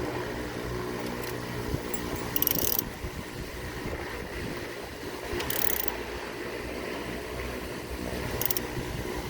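Ratchet wrench clicking in three short bursts as the steering wheel retaining nut is tightened onto the steering column shaft, over a steady low hum.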